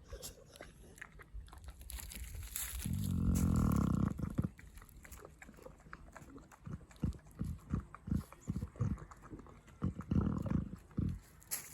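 A Cane Corso dog eating: chewing and chomping with scattered crunchy clicks, then a steady run of short chomps a few a second in the second half. A drawn-out pitched sound stands out about three seconds in, the loudest thing here.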